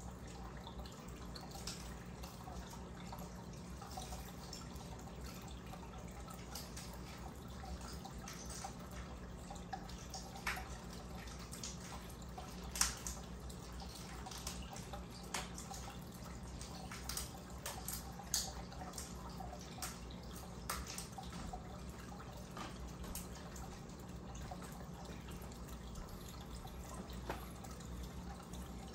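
Aquarium air stone bubbling: irregular small drips and pops of water over a steady low hum from the tank's equipment.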